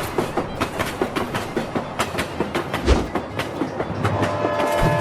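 Train wheels clacking quickly and unevenly over rail joints, with a low thump about three seconds in. A steady train horn starts sounding about four seconds in.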